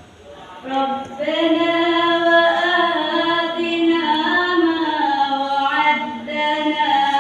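Female voice reciting the Quran in the melodic tilawah style, with long held, ornamented notes; it begins about a second in.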